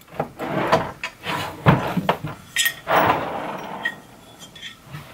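Aluminium extrusion uprights of a Creality Ender 3 3D printer frame being handled and set against its base: a run of clunks and rattles of metal parts, the loudest thump about a second and a half in, then a few fainter clicks.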